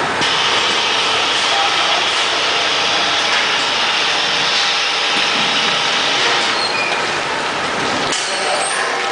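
Powder packaging machine running, a loud, steady, dense mechanical noise with a brief change about eight seconds in.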